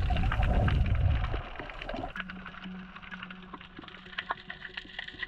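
Underwater sound picked up by a submerged camera: a muffled low rush of water for about the first second and a half, then a steady crackle of many small clicks. A low steady hum comes in about two seconds in.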